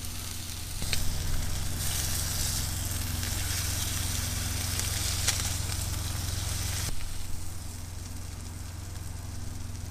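Salmon fillet sizzling in a coconut-oil and ghee mixture in a frying pan on an induction cooktop, over a steady low hum, with a couple of light tong clicks. The sizzle eases about seven seconds in.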